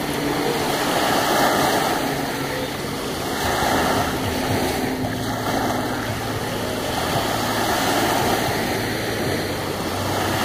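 Small waves washing onto a sandy beach, the wash swelling and easing every couple of seconds. A steady low engine hum runs underneath and drops in pitch about halfway through.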